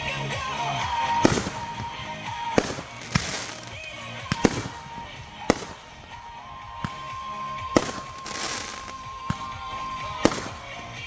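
Consumer fireworks going off: about ten sharp bangs at irregular intervals, some followed by a crackling hiss, with music playing underneath.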